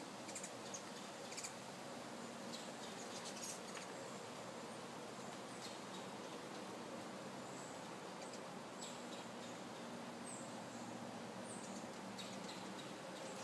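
Ruby-throated hummingbirds giving short, high-pitched chip calls, scattered through and busiest in the first seconds and near the end, over a steady background hiss.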